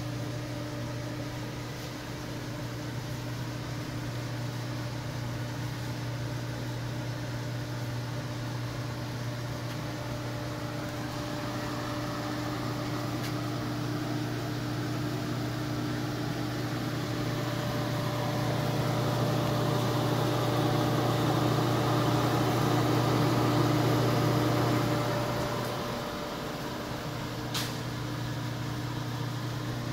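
Lincoln 1132 conveyor pizza oven running: a steady motor and fan hum with a low drone and a couple of faint steady tones above it. The hum grows louder through the middle and drops back about four seconds before the end, followed by a single light click.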